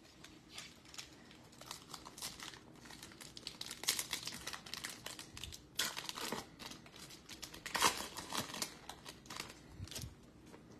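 Foil wrapper of a baseball trading-card pack crinkling and tearing as it is ripped open by hand, in a string of crackly rustles, the loudest about four, six and eight seconds in.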